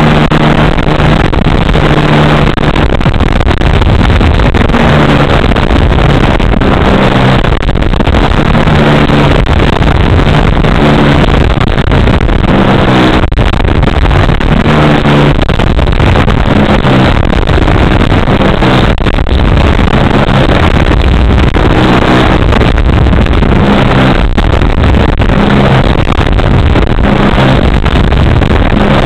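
3W gasoline engine of a giant-scale RC model plane running in flight, heard loud and close from a camera mounted on the airframe, together with heavy wind rush. The engine note shifts up and down again and again as the throttle changes.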